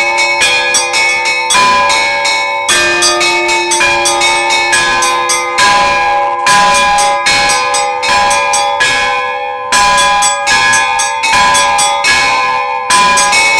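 Orthodox church bells being rung: several bells of different pitches struck in quick, overlapping succession, several strokes a second, with a heavier stroke every few seconds and all of them ringing on.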